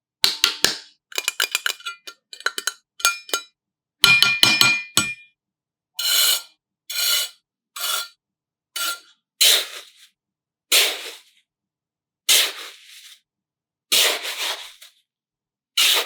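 A string of short, separately cut handling sounds. First come clusters of sharp clinks and rattles of small hard pieces with a ringing tone. Then about ten separate short noisy bursts of rustling or fizzing, roughly one a second.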